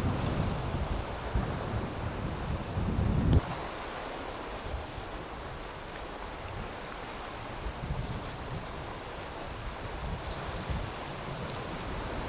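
Strong wind buffeting the microphone over rough surf. The low wind rumble cuts off suddenly about three seconds in with a click, leaving the steady wash of heavy waves.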